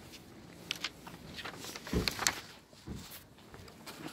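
Footsteps on pavement: a few irregular soft thumps and clicks, the loudest about two seconds in.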